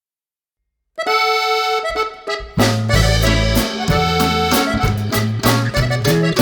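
Background music: silent for about a second, then an accordion tune begins, with bass and percussion joining about two and a half seconds in.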